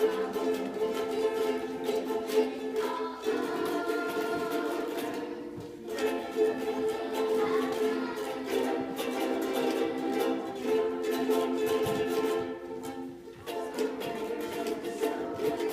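Music: a small plucked string instrument strummed quickly in steady chords, changing chord about three seconds in, again about six seconds in, and near the end.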